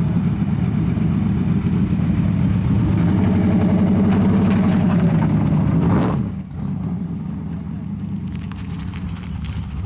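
V8 engine of an IROC-Z Camaro with a 396 running loud, its pitch climbing as it revs up. About six seconds in the sound cuts off abruptly to a quieter, steady engine rumble.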